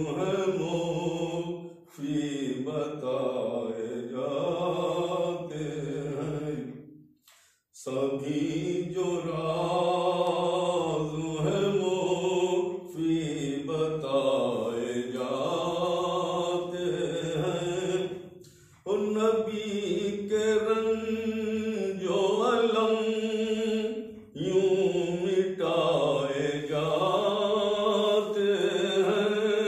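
An elderly man's solo, unaccompanied voice chanting a naat, a devotional poem in praise of the Prophet, in long drawn-out melodic lines. The voice breaks off briefly for breath four times.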